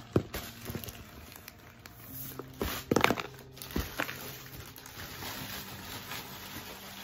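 Unboxing handling noise: plastic packaging crinkling and a box being knocked and shifted, with a sharp knock just after the start and a louder cluster of knocks and rustling about three seconds in.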